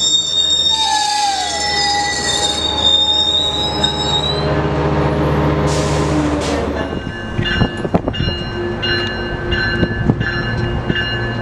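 Metrolink bi-level passenger cars rolling through the station with their wheels squealing on the rails in high, wavering tones. About seven seconds in the squeal gives way to a steady low hum with a regular pulsing tone about twice a second.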